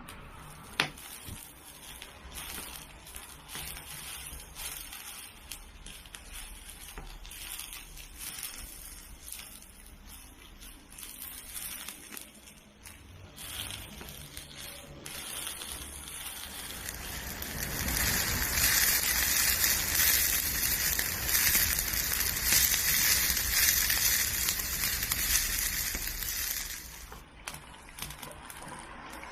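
Gyoza frying in a pan over a wood fire: scattered crackles and a light sizzle, swelling about halfway through into a loud, dense sizzling hiss that cuts off sharply a couple of seconds before the end.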